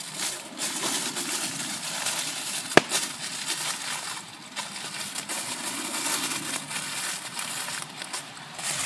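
Aluminium foil crinkling and rustling as a food parcel is folded over and squeezed shut by hand, with one sharp snap about three seconds in.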